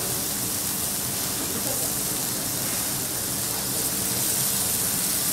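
Sliced meat sizzling steadily on a hot teppanyaki griddle, an even hiss.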